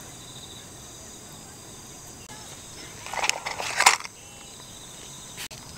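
Utensils clattering briefly against a camp mug as a folding knife is pulled out of it, about three seconds in, with the sharpest rattle just before the four-second mark. Insects trill steadily in the background.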